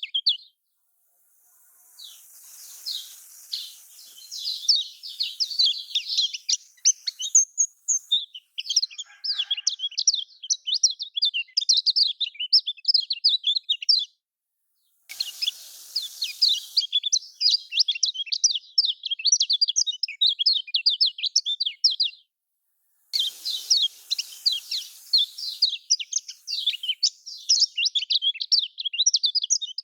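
Kecial kuning white-eye singing a fast, dense twittering chatter, the kind of song used as a lure to set a silent kecial singing. The song stops briefly a few times, about a second in, about halfway through and again about three-quarters through.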